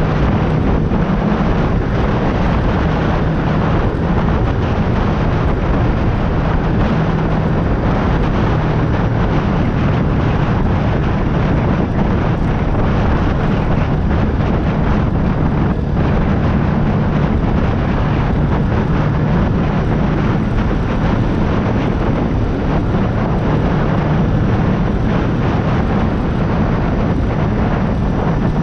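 Motorcycle engine running steadily while riding, its note shifting a little up and down, under a constant rushing noise.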